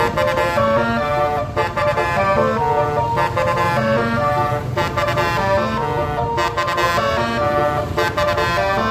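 Multi-trumpet telolet air horn on a tour bus playing a melody, its chords stepping from note to note every fraction of a second with a few brief breaks.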